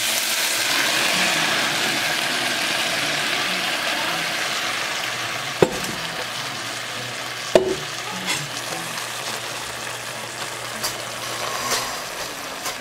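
Beef strips and potatoes sizzling in a hot stainless-steel pot as blended salsa verde is poured over them; the sizzle slowly dies down as the sauce covers the meat. Two sharp knocks sound about five and a half and seven and a half seconds in.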